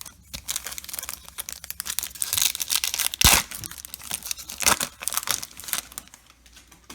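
Crinkling and tearing of a trading-card pack wrapper, a dense crackle with a sharp snap a little past the middle.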